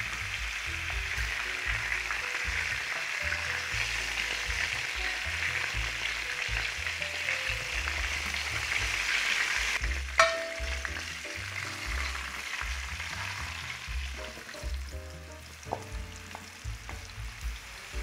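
Food sizzling and frying in a hot pan, steady for about ten seconds. Then comes a sharp clank with a brief ring, after which the sizzling is quieter, with a few light clicks near the end.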